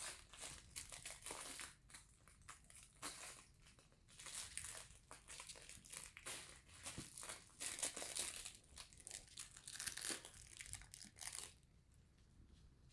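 Shiba Inu puppies scrabbling on a padded fabric dog bed and pawing and mouthing a fabric toy: soft rustling and crinkling in quick, irregular bursts that die away near the end.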